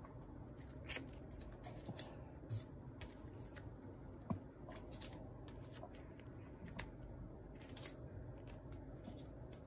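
Photocards in clear plastic sleeves being handled and laid on a table: scattered faint clicks and rustles at irregular intervals.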